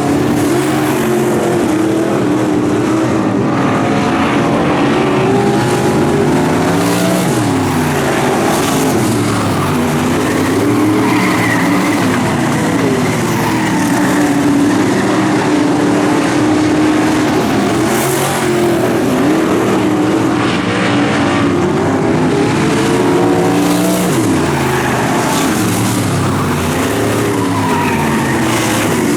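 Dirt-track race car engines running hot laps, loud throughout. The engine pitch dips and climbs again every few seconds as the cars come off and back onto the throttle.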